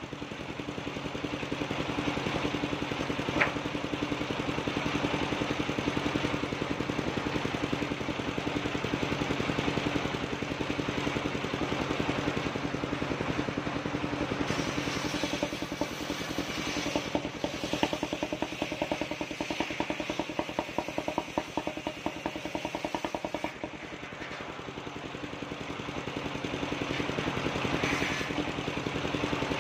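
Engine-driven portable circular sawmill running steadily, its large circular blade cutting planks as the boards are pushed through. A single sharp knock about three seconds in.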